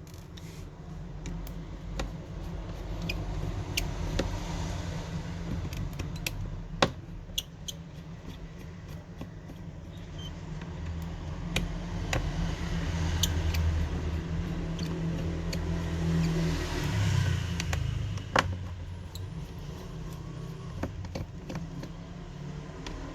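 Small metallic clicks and ticks of a screwdriver working the screws out of a smartphone's inner frame, scattered irregularly, over a low rumble that swells in the middle and fades again.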